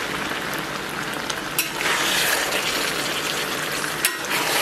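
Pork belly, sauerkraut, potatoes and glass noodles sizzling steadily in a wok while being stirred with a spatula. Two sharp clicks, likely the spatula striking the wok, come about a second and a half in and again near the end.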